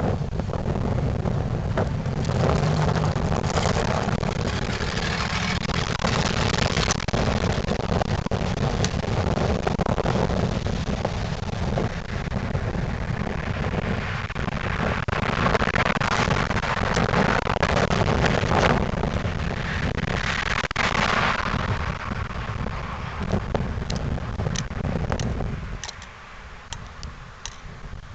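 1998 Ford Crown Victoria Police Interceptor's 4.6-litre V8 running with a leaking exhaust as the car drives by, a loud steady rumble that drops away sharply near the end, followed by a few sharp clicks.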